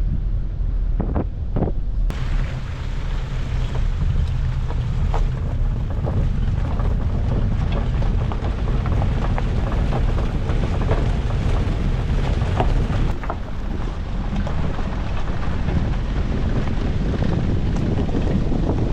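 4WD vehicle driving on a gravel track: a steady low rumble with many small ticks and crackles from the gravel, and wind buffeting the microphone.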